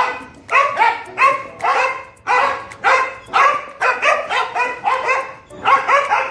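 Dogs barking repeatedly and excitedly, short sharp barks at about three a second, coming faster and overlapping near the end.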